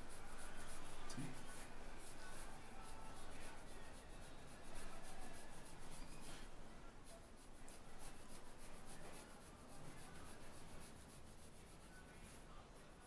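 Pencil scratching on paper in quick, short back-and-forth shading strokes, with the hand rubbing over the sheet.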